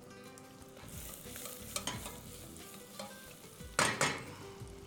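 Chopped onion, garlic, leek and celery sizzling as they sauté in oil and butter in a saucepan, with a louder burst of noise about four seconds in as the pot is handled.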